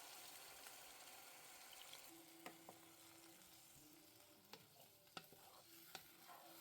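Faint sizzling of chicken masala curry cooking in a covered pot on high flame, with a few light clicks.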